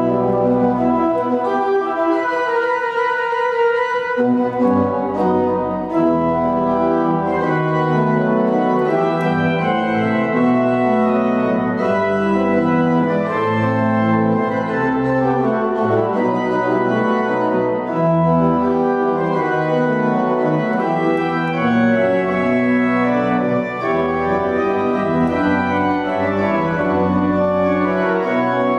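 Goll pipe organ playing full sustained chords in a romantic-style improvised sonata movement, with a moving bass line underneath. The lowest bass notes drop out for about two seconds near the start, then return.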